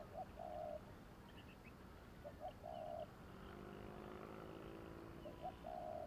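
Spotted dove cooing: three phrases about two and a half seconds apart, each two quick short notes and then a longer held coo. Faint chirps of small birds sit behind it.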